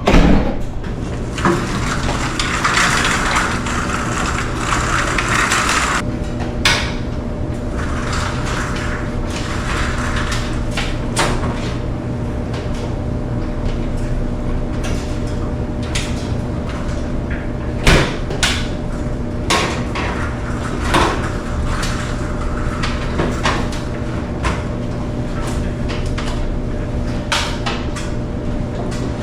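Steady hum of running clothes dryers in a laundry room, with scattered clicks and knocks. A rushing noise fills the first several seconds.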